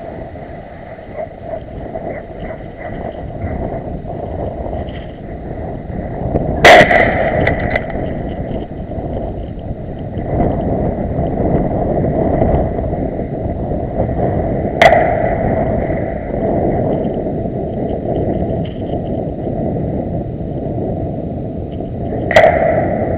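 Three gunshots about eight seconds apart, each a sharp crack with a short echo, over a steady low rumble.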